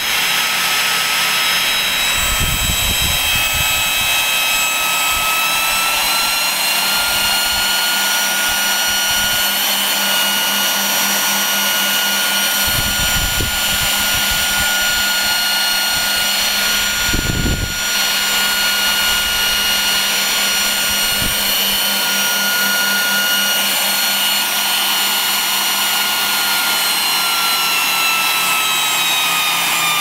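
Several vacuum cleaner motors wired in parallel off a Variac run together, giving a chord of high whines at different pitches. The whine rises slightly a few seconds in and slides down in pitch near the end.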